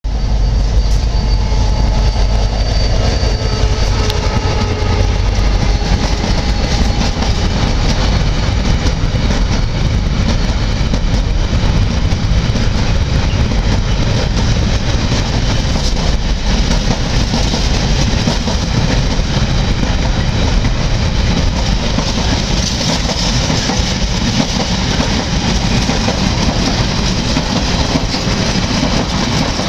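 An Irish Rail 071 class diesel-electric locomotive (EMD 12-cylinder two-stroke engine) runs through hauling a container freight train. Its heavy engine sound is strongest in the first few seconds, then gives way to the steady, loud rolling of the wagons' wheels on the rails as the flat wagons pass.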